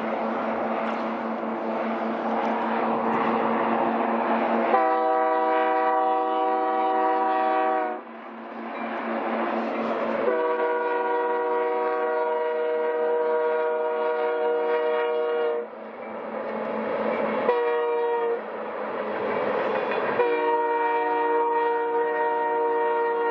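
Diesel freight locomotive's multi-chime air horn sounding long, long, short, long over the engine's steady rumble: the standard grade-crossing signal as the train approaches a crossing.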